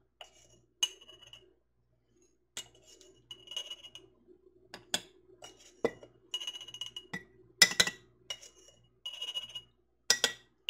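A measuring spoon clinking against glass quart canning jars as seasoning is spooned into each one: a string of irregular sharp clinks with a short glassy ring, with soft scraping between them.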